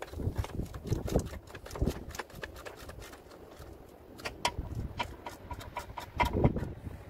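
Irregular metal clicks and knocks from a brake-pipe flaring tool being clamped onto a steel brake pipe and wound tight to crush the end into a flare. The sound is sped up.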